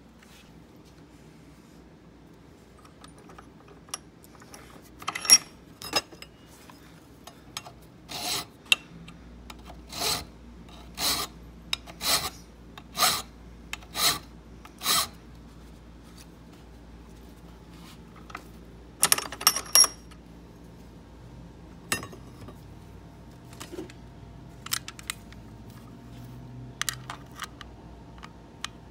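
Hand file rasping in separate strokes, about one a second for several seconds, across a bit key blank clamped in a bench vise, taking metal off where the key hits the lock. Sharp clicks come before and after the run of strokes.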